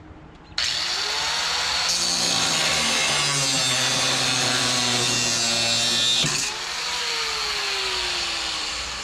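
A power tool's motor starts suddenly and spins up, then runs harsher and lower under load for about four seconds. It is then released and winds down slowly, its pitch falling over the last few seconds.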